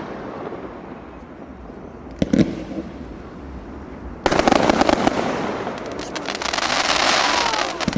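Display fireworks: a single sharp bang about two seconds in, then from about four seconds a sudden loud burst of rapid crackling that swells and dies away near the end.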